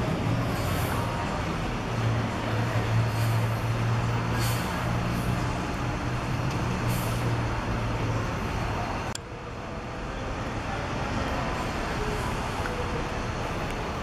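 Intercity coach's diesel engine running low and steady as the bus pulls into its bay and stops, with several short hisses from the air brakes. The engine sound ends abruptly about nine seconds in.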